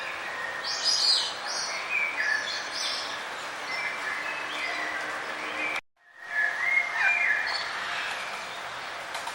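Several small birds chirping and trilling in short, overlapping phrases over a steady background hiss. The sound cuts out suddenly for about half a second around six seconds in, then the chirping resumes.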